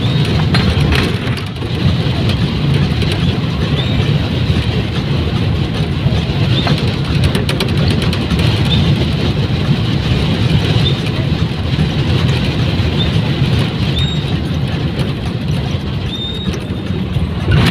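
Steady low rumble of a moving road vehicle heard from inside it: engine and road noise while driving. Faint short high chirps come every couple of seconds.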